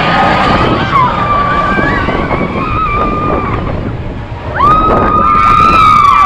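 Seven Dwarfs Mine Train roller coaster in motion: wind rush and rumble with a long, steady high-pitched squeal over it. The squeal fades about three and a half seconds in and comes back loud near five seconds.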